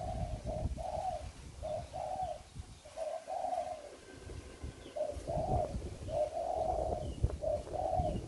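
Spotted doves cooing: a run of short, repeated coo notes, a pause of about a second near the middle, then another run.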